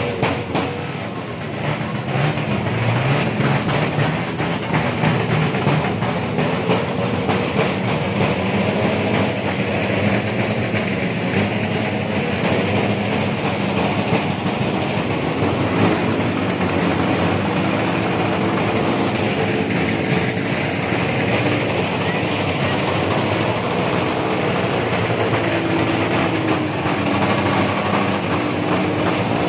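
Motorcycle engines running with a continuous rattling drone over crowd noise, with an engine revving up and down near the end.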